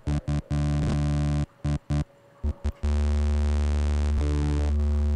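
Low bass note from the Sytrus software synthesizer, its oscillator set to a waveform other than a sine and rich in harmonics, giving a buzzing tone. It is played as a few short stabs, then held steadily from about three seconds in, with its tone shifting slightly as the waveform faders are moved.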